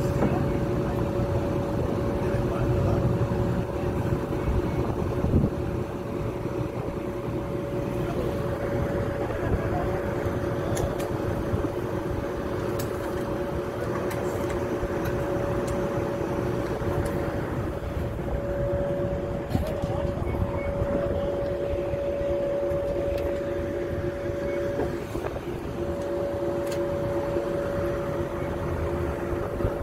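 Greyhound coach standing at a stop with its engine idling: a steady rumbling hum with two held tones over it, and a few light clicks.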